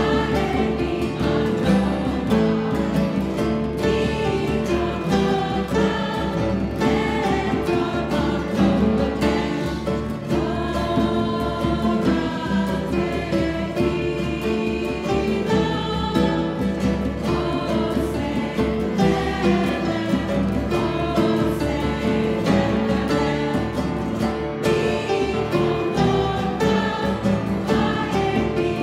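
Mixed choir of men and women singing together, accompanied by acoustic guitar.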